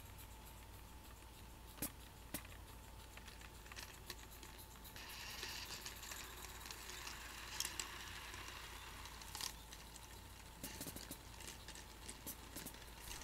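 Garden-scale model train rolling past on track: faint irregular wheel clicks over the rail joints, with a light rolling hiss that swells for a few seconds in the middle.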